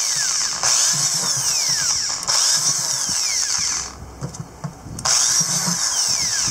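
Electric drill boring 1/4-inch holes through the plastic bottom of a 5-gallon bucket, one hole after another in short runs. It stops for about a second just past the middle, then starts again on the next hole.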